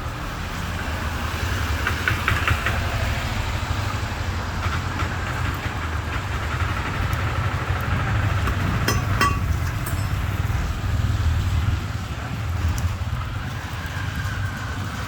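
Steady low rumble of a motor vehicle engine running, with a few short clicks and knocks about two seconds in and again about nine seconds in.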